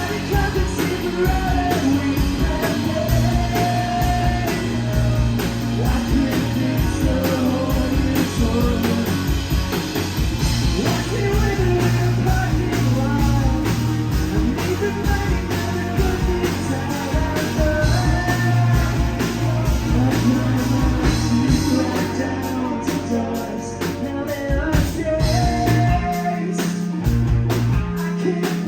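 Heavy rock band playing live, loud, with drums, guitar and a singer's voice over them. Near the end the low end cuts out for brief moments while the drum hits carry on.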